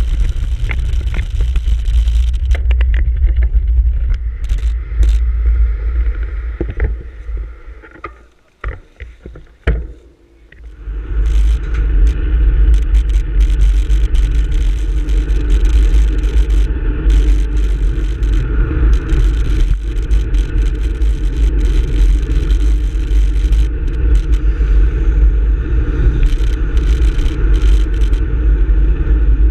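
Wind buffeting the microphone of a handlebar-mounted camera on a moving road bike, a loud steady rumble mixed with tyre and road noise and scattered clicks and rattles from road vibration. It drops away for a few seconds about a third of the way in, then returns at full strength.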